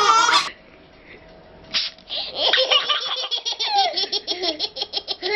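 Babies laughing, cut off about half a second in. After a short lull, toddlers break into hard laughter, a fast run of about four laughs a second.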